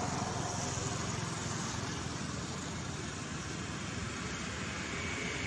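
Steady outdoor background noise: a low, even rumble with hiss over it, like distant traffic, with no distinct events.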